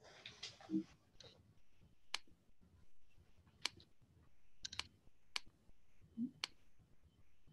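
Computer mouse clicking: about six faint, sharp single clicks a second or so apart, with a quick double click in the middle, as slides are navigated through a right-click menu.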